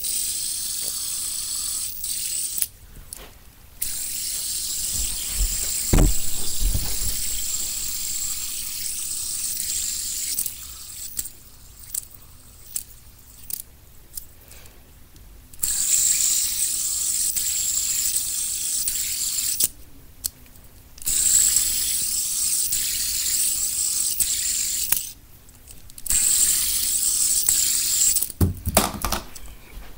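Three-armed fidget spinner with metal bearings whirring as a steady airy hiss, flicked into spin and stopped short several times, with clicks of handling in between. A single thump about six seconds in.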